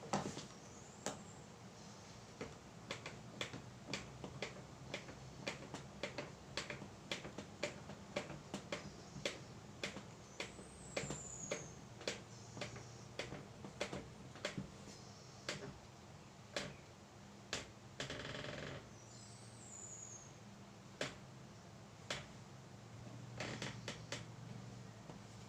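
Irregular series of light, sharp knocks and clicks, about one or two a second, with a couple of high falling chirps and a brief rasping burst about two-thirds of the way through. No router motor is running.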